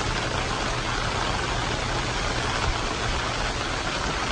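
A steady rushing noise with a low rumble underneath, the outdoor sound of a phone video.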